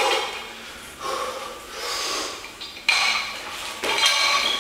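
A man breathing hard and fast from the exertion of heavy barbell cleans, with loud, rasping breaths about once a second.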